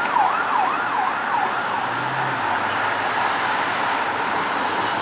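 An emergency vehicle siren, a fast up-and-down wail about three sweeps a second, fading away over the first two seconds. Steady street traffic noise continues underneath.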